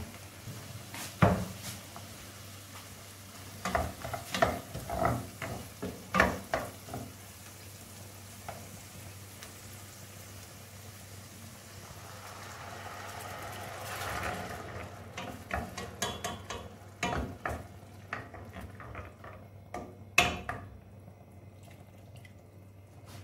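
A wooden spoon stirring onions simmering in a little water and oil in a stainless steel frying pan, with sharp knocks of the spoon against the pan and a soft sizzle. About halfway through, the sizzle swells as more ingredients are poured in, followed by more clinks and scrapes.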